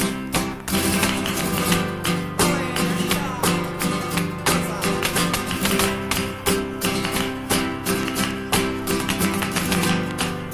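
Flamenco guitar playing alegrías: plucked melody with sharp strummed accents that come back in a regular rhythm.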